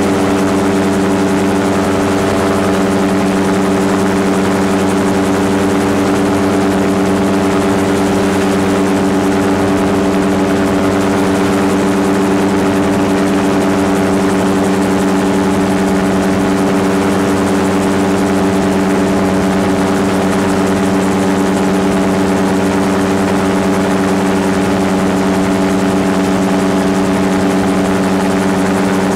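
Gyrocopter in flight: its engine and propeller running at a steady cruise power, a constant droning hum with air rushing past the leg-mounted camera.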